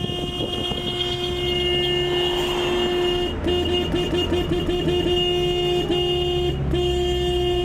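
Car horn held down in a long steady blast, broken in the middle by a quick run of about eight short toots, then held again, over a low engine rumble.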